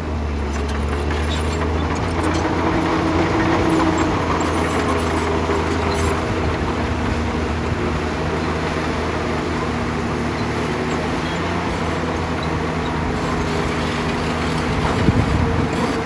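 Hyundai excavator's diesel engine running steadily under load, its low note shifting as the machine works, with one short sharp knock near the end.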